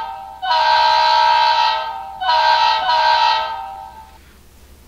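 Model locomotive's DCC sound decoder playing its air horn through the locomotive's speaker: a chord of steady tones in separate blasts, with the end of one blast at the start, a long blast about half a second in, and another about two seconds in that fades out. The horn is set as a momentary function, so it blows only while the test button is pressed.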